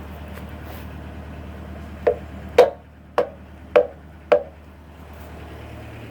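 An engine idling steadily, its note dropping about two and a half seconds in and shifting near the end, with five sharp knocks about half a second apart in the middle.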